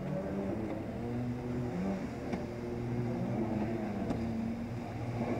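Jet ski engines running on the water, their pitch rising and falling as a stand-up jet ski and a sit-down personal watercraft ride past.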